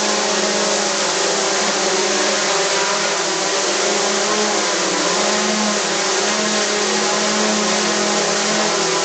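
DJI Mavic 2 Zoom drone's propellers running in a steady whine, the pitch wavering slightly, during a test flight after the repair.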